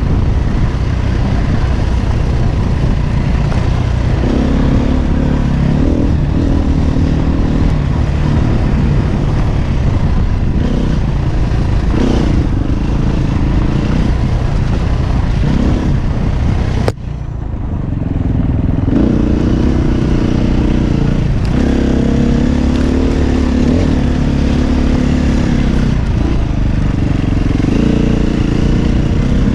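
KTM 350 Six Days dirt bike's single-cylinder four-stroke engine running under the rider, its note rising and falling over and over as the throttle is worked along a twisty trail. A sharp click about halfway, after which the sound briefly drops.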